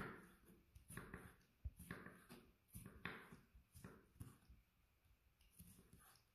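Faint chef's knife cutting red bell pepper on a wooden cutting board: a run of soft knocks as the blade goes through and meets the board, about one or two a second.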